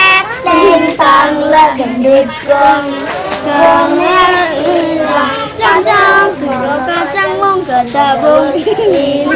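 A group of young children singing a hand-game song together.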